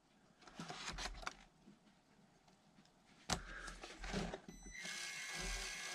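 Faint clicks and rattles of small plastic RC crawler parts being handled, with a sharp click about three seconds in. Near the end a steady, high-pitched mechanical whine starts and keeps going.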